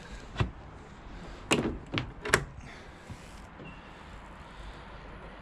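A few sharp knocks, four in about two seconds, followed by a short rustle.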